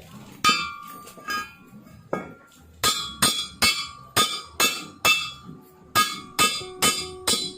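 A hammer striking metal about fifteen times, each blow ringing briefly; the blows come slowly at first, then faster and more evenly. They land on a stubborn, seized broken bolt on a car's muffler.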